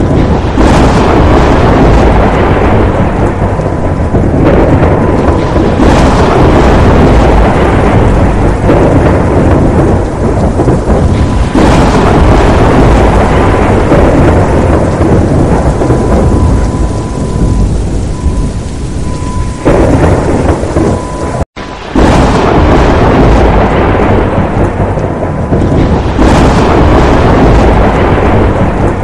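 Heavy rainstorm: loud, dense rain noise over a steady deep rumble. It cuts out for an instant about three-quarters of the way through.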